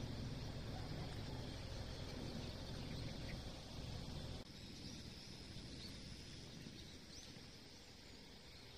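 Faint rural outdoor ambience. A steady low rumble cuts off abruptly about four and a half seconds in, leaving a quiet steady hiss with a few faint, brief bird chirps.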